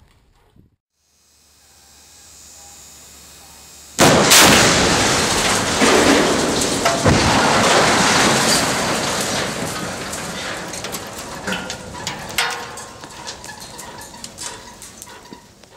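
Explosive cutting charges firing on a dragline crane's steel boom cables: a sudden loud blast about four seconds in, then a long noisy wash of sound that slowly fades, scattered with sharp cracks and clatters of flying debris.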